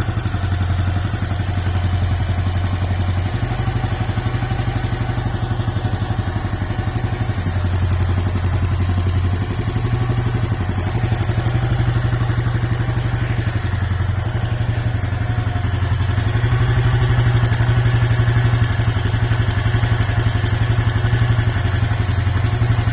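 Honda Super Cub 110 (JA07) air-cooled single-cylinder four-stroke engine idling steadily, with a light mechanical clatter over the running.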